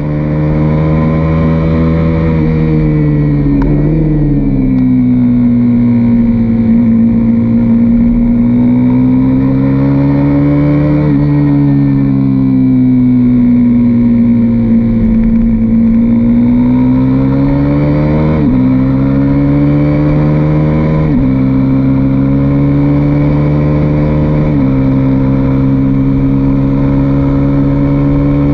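KTM RC single-cylinder sport bike engine heard onboard at track speed, its note climbing and falling as the throttle opens and closes through the corners. The pitch steps abruptly several times at gear changes, over a low rush of wind.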